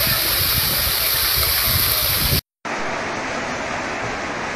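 Floodwater rushing down a concrete storm channel, a loud steady rush. It cuts off abruptly about two and a half seconds in, and a quieter steady rush of a heavy downpour follows, with runoff pouring off a roof edge.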